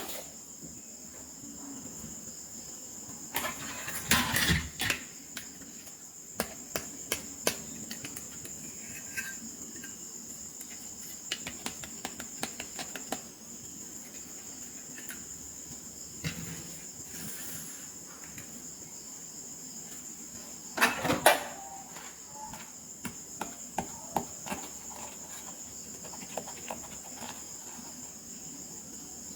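Small plastic toy pieces and packaging being handled: scattered clicks and taps, with two louder clattering clusters, about four seconds in and again about twenty-one seconds in. A steady high-pitched whine runs underneath.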